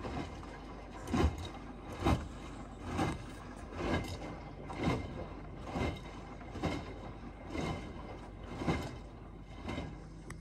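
Beko B3W5942IW front-loading washing machine in the final rinse of a Quick 60° programme with Fast+, its drum tumbling the wet laundry through rinse water: a swish and thump of falling, sloshing washload about once a second over a low steady motor hum.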